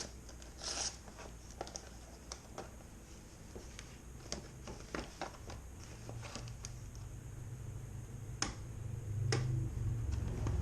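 Scattered clicks, crinkles and scratches of a takeout bag and box of chicken wings being handled and opened by hand.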